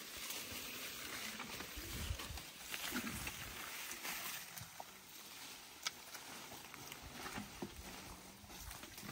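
Young African elephant browsing on a leafy bush at close range: leaves rustling and tearing as it feeds, with a few sharp twig snaps.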